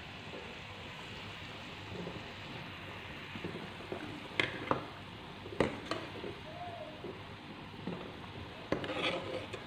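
A steel ladle stirs a simmering curry in a pan, clinking and scraping against the pan a handful of times in the second half, over a steady bubbling, sizzling hiss.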